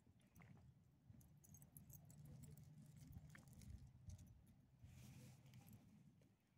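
Near silence: faint scattered ticks and light patter of small dogs sniffing and stepping on loose gravel, over a faint low steady hum.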